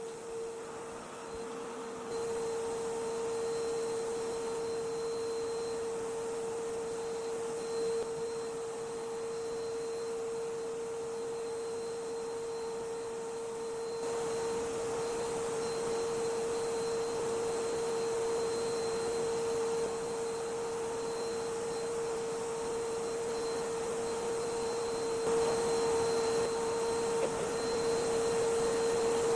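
Steady machine hum with a constant whining tone, getting louder about two seconds in.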